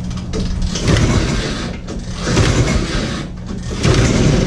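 A vintage 1967 Ski-Doo's two-stroke engine being pull-started by hand: about three rough cranking pulls on the recoil starter, each lasting about a second. A steady engine hum runs underneath.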